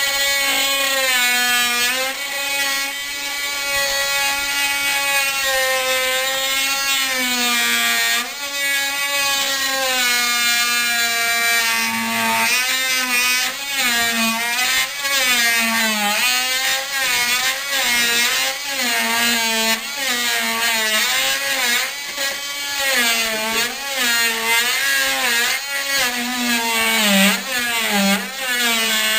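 Handheld oscillating multi-tool (a molding end cutter) running as its flat blade cuts a straight vertical notch through a baseboard down to the floor. Its whine holds steady at first, then from about halfway on dips and wavers in pitch over and over as the blade bites into the wood.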